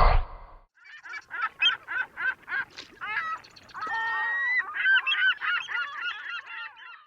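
Birds calling with a fast run of short honking calls, about three a second. A longer held call comes about four seconds in, followed by more calls near the end.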